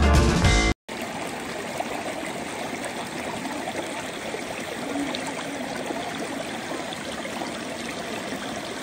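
Background music that cuts off under a second in, then a stream flowing steadily.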